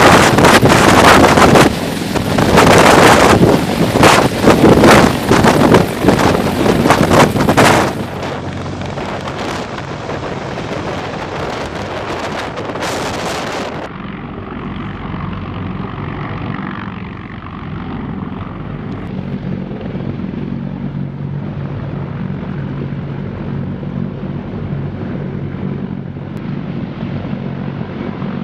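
CH-53E Super Stallion heavy-lift helicopter in a low hover, its rotor downwash buffeting the microphone in loud gusts for the first eight seconds or so. After that comes the steadier, quieter drone of its rotors and turboshaft engines.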